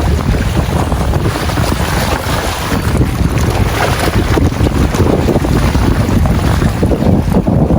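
Strong wind buffeting the microphone in a steady low rumble, with the sea washing underneath.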